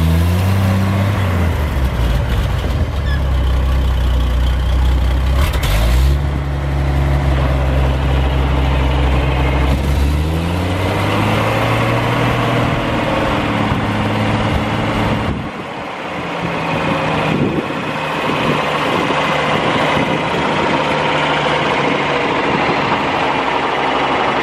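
1967 Chevrolet C-50 truck's gasoline engine under way, its note climbing near the start and again about six seconds in, then easing off and falling. About fifteen seconds in it drops to a steady idle that runs on.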